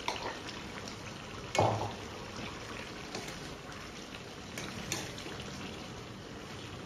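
Pork curry bubbling and sizzling in a frying pan on a gas flame, as garlic is stirred in with metal spoons knocking and scraping against the pan; one sharp knock stands out about a second and a half in.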